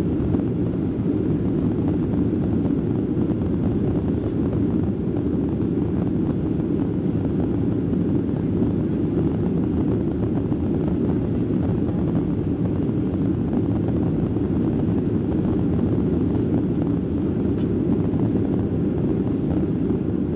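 Steady cabin noise of a Ryanair Boeing 737 airliner climbing out after take-off: an even, low drone of jet engines and airflow heard from inside the passenger cabin, with no change in level.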